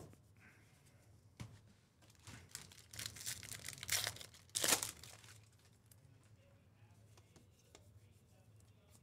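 Trading-card pack wrapper being torn open and crinkled, in a run of short rustling bursts from about two to five seconds in, with a light click before it.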